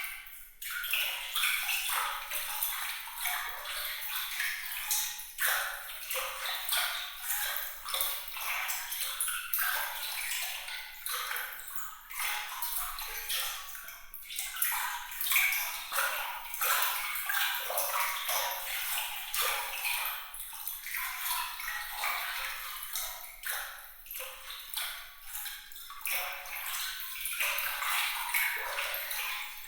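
Water trickling and splashing without pause, made up of many small bright droplet splashes. It sounds thin and high, with no low rumble beneath it.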